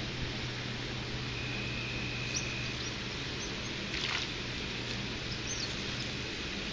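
Steady rush of water from the nearby dam, with a hooked bluegill splashing at the surface about four seconds in. A few faint bird chirps and a brief high whistle sit over the rush.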